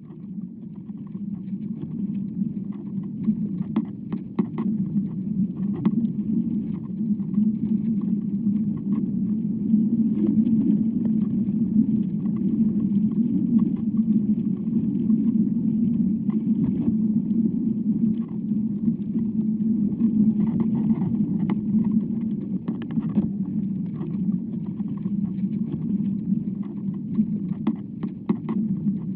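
Inner sound of a tree trunk picked up by a probe microphone set into the wood: a steady low rumble as the wind works the tree, with scattered faint ticks and crackles. It fades in over the first couple of seconds.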